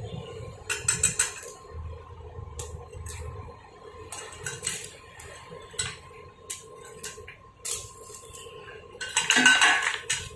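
A 2 mm stick-welding electrode scratching and tapping against a steel block in irregular clicks and scrapes, with a louder burst near the end, as the welder tries and fails to strike a lasting arc: the current dial is set too low for the rod.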